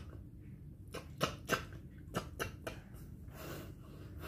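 Light, irregular taps and clicks, about ten in a few seconds, from hands and a cat's paws moving on a tiled floor during play with the cat.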